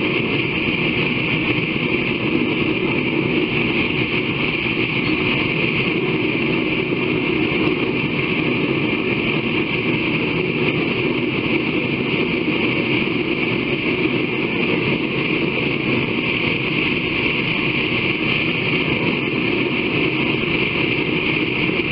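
Forge running with a steady, unbroken rushing noise.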